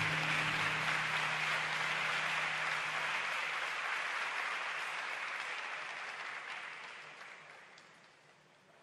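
Rink audience applauding, the clapping fading away steadily until near silence about eight seconds in. A low held tone fades out under the applause in the first few seconds.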